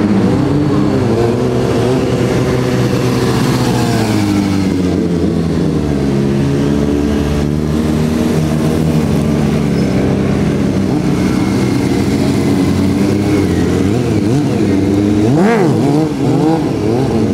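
Sport motorcycle engines revving as the bikes are ridden in stunts, the engine pitch rising and falling again and again, with a few quick sharp revs near the end.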